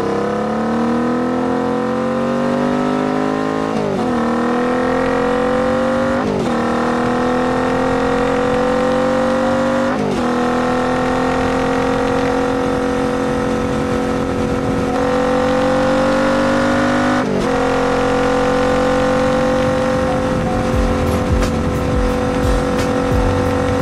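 2019 Royal Enfield Continental GT 650's 648 cc 270-degree parallel twin through a Diablo full exhaust, accelerating hard. The engine note climbs and drops sharply at four upshifts. It then settles into a steady cruise.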